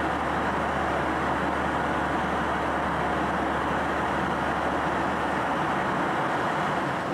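Steady rushing cabin noise of a jet airliner in flight, engines and airflow heard from inside the cabin. A low hum beneath it fades out about six seconds in.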